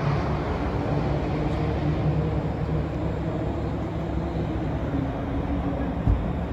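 Steady hum of car engines and traffic, with a low rumble throughout and a single short thump near the end.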